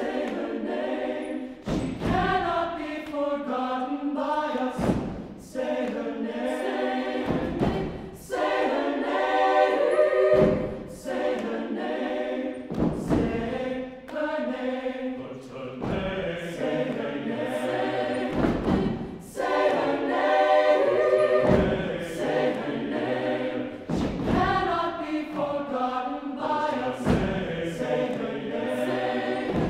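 Mixed chamber choir of women's and men's voices singing together in close harmony, in short phrases that each open with a sharp attack.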